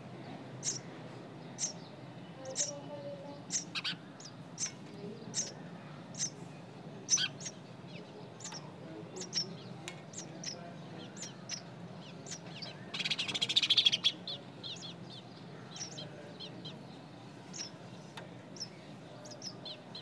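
Nestling birds peeping: short, high-pitched begging calls repeated about once or twice a second. A louder, rapid rattling burst lasts about a second, around two-thirds of the way in.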